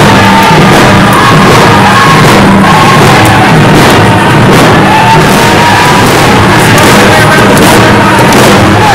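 Indigenous round-dance song: a group of voices singing together over hand drums, echoing through a large hall.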